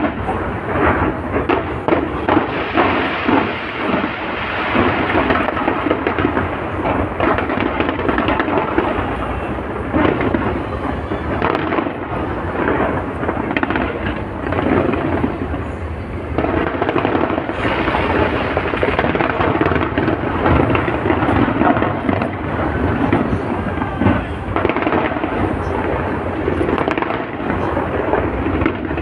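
Big fireworks display in full volley: booms and crackling bursts overlap with no break, rumbling on like thunder.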